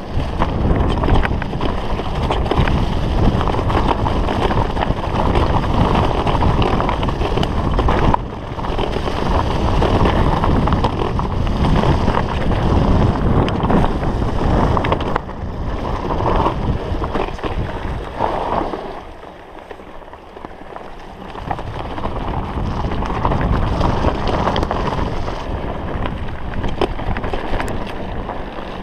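Wind buffeting the microphone of a mountain bike's on-board camera while riding fast down a dirt trail, with tyres rumbling and the bike rattling over the rough ground. The noise drops for a couple of seconds about two-thirds of the way through.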